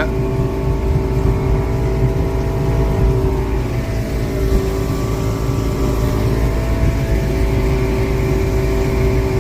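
Motorboat engine running at steady cruising speed, a constant drone with low rumble.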